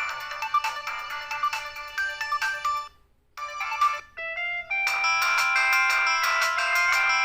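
Samsung SCH-F309 mobile phone's polyphonic ringtones playing. One busy, quick-note tune stops about three seconds in, and after a short pause a new tune starts with a few rising notes, then goes on in full.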